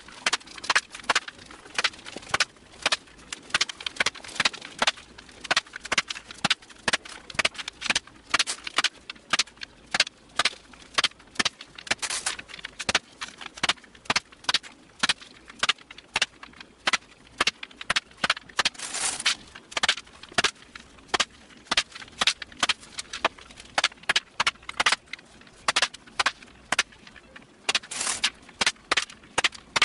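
Small metal nuts clicking and clinking, a few sharp clicks a second at an uneven pace, as they are picked from a pile and set into the holes of a spoilerboard. Now and then a short jingle of many nuts being stirred together.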